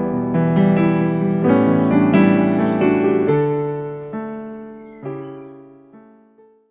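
Background piano music: slow chords that swell and then fade away, dying out just before the end.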